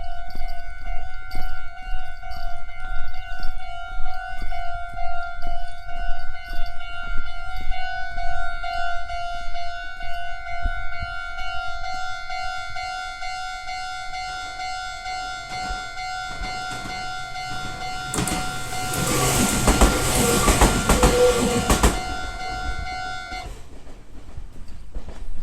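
Japanese level-crossing alarm ringing a steady, evenly repeating electronic clang as a local train comes up. The train runs through the crossing about three-quarters of the way in, with wheel and rail clatter that is the loudest part, and the alarm stops soon after.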